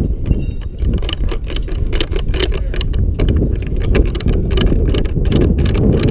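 Ratchet wrench clicking on a crossarm bolt, in a quick run of sharp metallic clicks that starts about a second in and keeps going at roughly four a second, over a steady low rumble.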